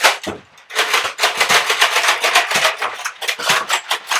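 A quick, irregular run of sharp clicks and clattering knocks, several a second, with a short lull about half a second in.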